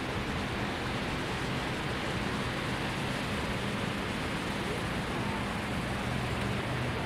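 Cars and a van wading slowly through a flooded street: a steady rush of churned water and tyre spray over a low engine hum.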